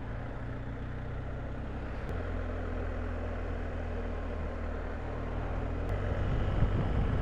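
BMW R1250GS boxer-twin engine running steadily under way, with wind noise. The engine note changes abruptly about two seconds in and again near six seconds, each change marked by a faint click.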